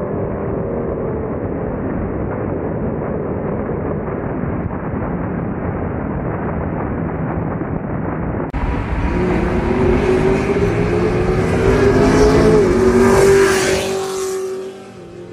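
A 6th-generation Camaro and a cammed Pontiac G8 racing at full throttle on the highway, first as a steady, muffled engine and road noise. After a cut about two-thirds of the way in, a car accelerates hard past the camera: its engine note rises steadily for several seconds, then falls and fades as it goes by near the end.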